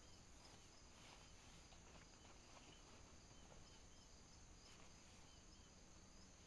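Near silence: faint ambience with a steady high-pitched chirring, like crickets or other insects.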